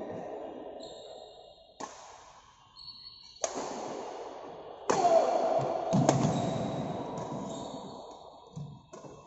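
Badminton rackets hitting a shuttlecock, a few sharp strikes in the middle of the stretch, each followed by a long echo in the big hall.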